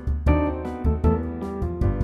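Background music: keyboard chords over a bass line, with new notes struck every fraction of a second.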